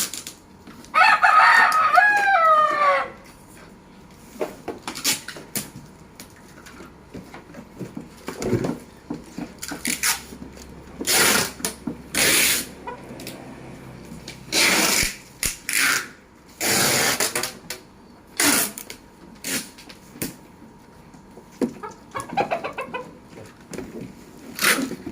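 A rooster crows loudly about a second in, with a fainter crow near the end. Between the crows come short, scattered bursts of rustling, scraping noise.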